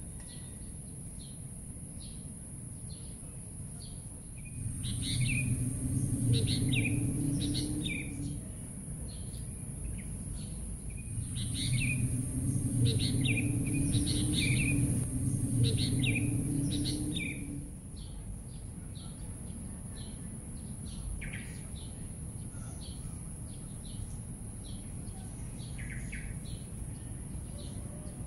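Birds chirping in short repeated calls over a steady high hiss. Twice, for a few seconds each (about five seconds in and again from about eleven seconds), a louder low steady drone rises under the calls and then drops away.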